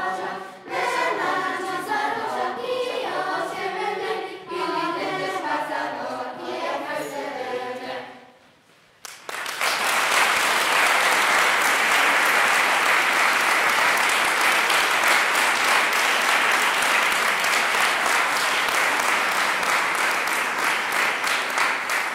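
Children's choir singing a cappella; the song ends about eight seconds in. After a brief pause, an audience claps steadily for the rest of the time.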